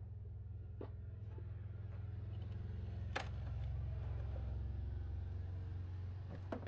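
A steady low rumble, with a few sharp clicks from hands working at the plastic air-intake duct and air box in a truck's engine bay: a small click about a second in, a louder one about three seconds in, and more near the end.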